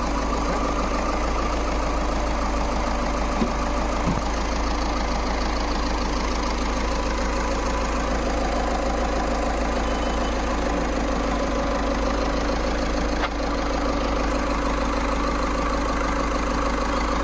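Volkswagen Vento 1.6's engine idling steadily while its air-conditioning system is refilled with refrigerant gas.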